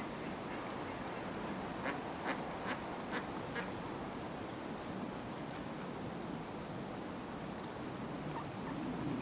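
Wild birds calling over a steady background hiss: five short, sharp calls about two seconds in, then a run of about nine high, thin notes spaced roughly a third of a second apart.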